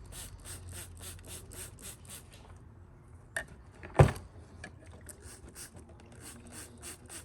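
Quick, even rubbing strokes on marine toilet parts, about four a second, pausing halfway for a small click and then a sharp knock, before the strokes start again.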